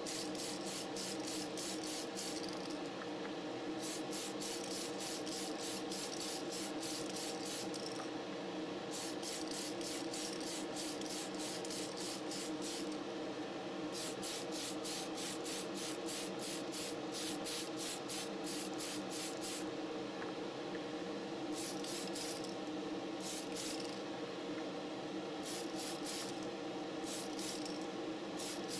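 Aerosol spray can hissing as clear coat is sprayed onto a model car body, in repeated passes of a few seconds each, with shorter bursts near the end. A steady hum runs underneath.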